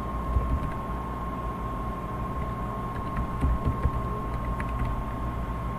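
Steady low hum and hiss of the recording's background, with a constant thin high tone, and a few faint clicks of a computer keyboard as a username and password are typed.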